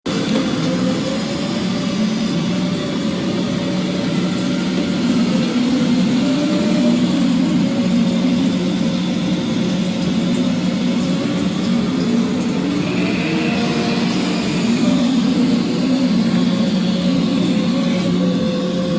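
Robot vacuum cleaners running: a steady motor hum with a wavering whine over it.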